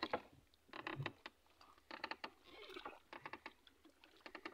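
Several short bursts of rapid clicking and light tapping, with a soft thump about a second in: handling noise from gear being moved around among a landing net and plastic bags.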